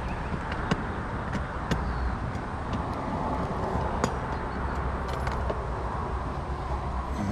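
Steady outdoor rumble and hiss, with a handful of sharp, irregular clicks as a baitcasting rod and reel are handled during a retrieve.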